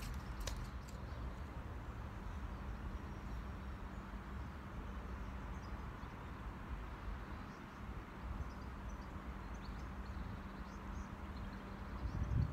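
Outdoor background: a steady low rumble with faint, scattered bird chirps, a light click just after the start, and a louder low rumble near the end.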